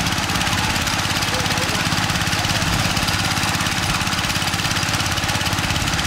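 Small engine of a pond water pump running steadily with a fast, even beat, pumping the water out of a fishing pond.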